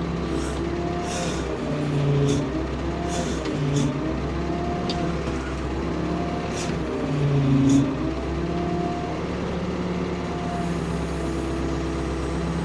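Ford P-42 excavator engine running under hydraulic load, its pitch dipping and rising as the boom and bucket are worked, with the loudest swell near the end. Short hissing bursts come over it several times.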